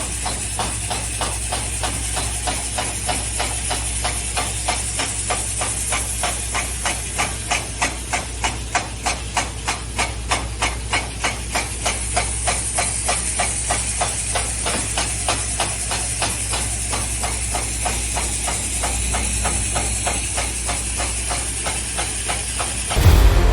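Diesel-powered diamond wire stone saw running: a steady engine hum under a hiss, with a fast, even ticking of several clicks a second that grows stronger in the middle and then fades back.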